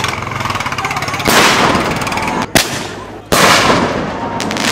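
Fireworks going off: crackling and hissing, then a sudden loud rush a little over a second in, a single sharp bang about two and a half seconds in, and a second loud rush soon after.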